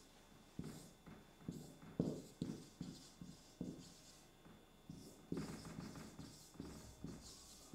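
Marker writing on a whiteboard: faint, irregular taps and short scratchy strokes as words are written.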